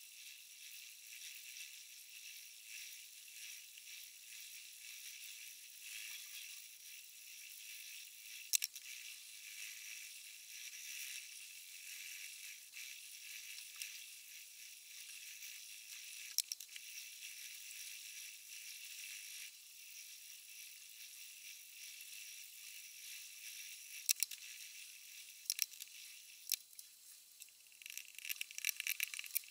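Kitchen knife edge being sharpened on a 1500-grit diamond stone in a guided sharpener: a faint hissing scrape of steel on the diamond plate that swells and fades from stroke to stroke. There are a few sharp clicks, and more clicks and rattles near the end.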